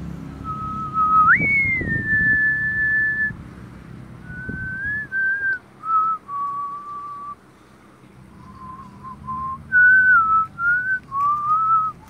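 A person whistling a tune: clear single notes, some held for over a second, others stepping or sliding up and down, in short phrases with brief pauses between them.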